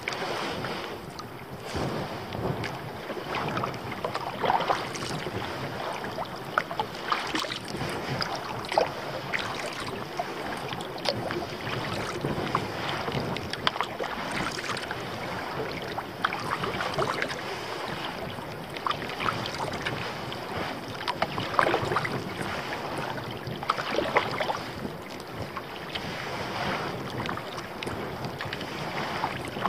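Kayak moving through choppy water: irregular splashes and water lapping against the hull, over steady wind noise on the microphone.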